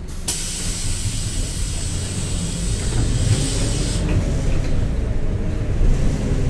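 Diesel engine of a Mercedes-Benz OF-1721 BlueTec 5 city bus running, overlaid by a loud hiss of compressed air released from the bus's pneumatic system, which starts suddenly and cuts off after nearly four seconds.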